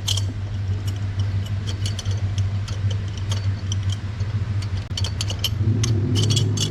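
Light metallic clicks and clinks of hand tools as a new spark plug is fitted, over a steady engine hum. The low hum gets slightly fuller near the end.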